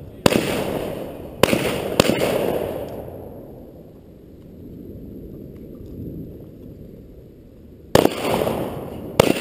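Firearm shots fired at a distance, each a sharp crack followed by a rolling echo that dies away over about a second. Three shots come in the first two seconds, then a pause of about six seconds, then two more near the end.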